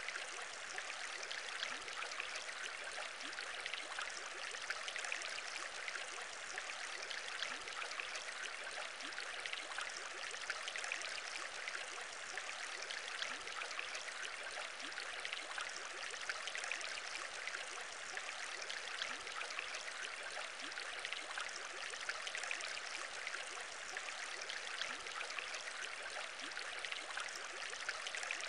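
Steady aquarium bubbling: a dense, unbroken stream of small bubbles popping and trickling through water.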